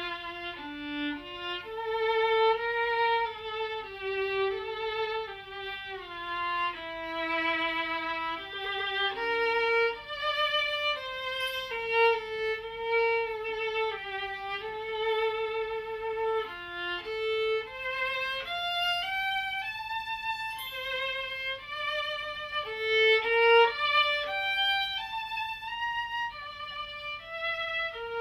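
Solo violin playing an unaccompanied melody, one note at a time with vibrato on the held notes.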